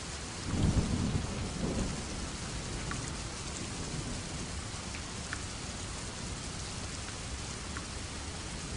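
Steady rain falling, with a low rumble of thunder starting about half a second in and fading after a second or so, the loudest part of the sound.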